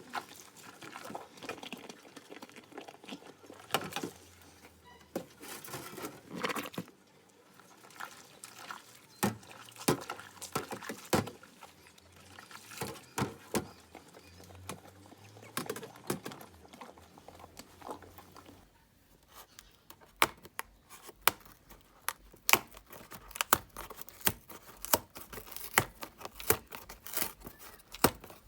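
Washing up in a kitchen sink: water splashing, with dishes and utensils clinking and knocking. In the last third, a quicker run of sharp clicks and knocks.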